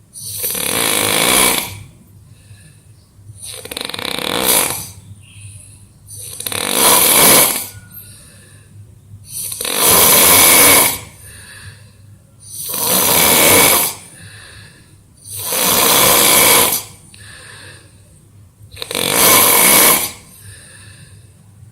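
A person snoring in deep sleep from exhaustion: seven loud snores, one about every three seconds, each lasting about a second and a half.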